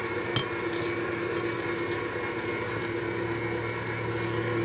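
Stand mixer motor running steadily with an even hum while whipping egg whites. A single light click about half a second in.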